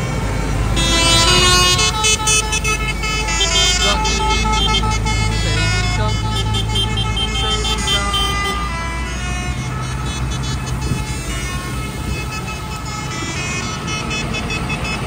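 Diesel farm tractors running as they drive past in a procession on a wet road, with horns tooting at several pitches over the engines for most of the first nine seconds.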